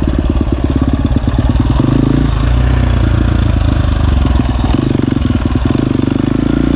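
Husqvarna 250 dirt bike's engine running while being ridden, its revs changing about two seconds in and again near the end.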